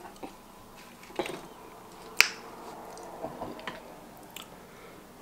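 Eating sounds while chewing fried Chinese takeout and handling chopsticks: quiet chewing with a few scattered sharp clicks and smacks, the sharpest about two seconds in.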